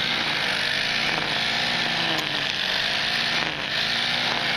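A steady motor-like drone under a constant hiss, running without a break.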